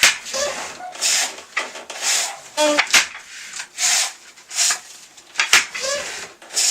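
Traditional wooden hemp loom being worked by hand: a repeating run of short rubbing strokes of wood and hemp thread, roughly one to two a second.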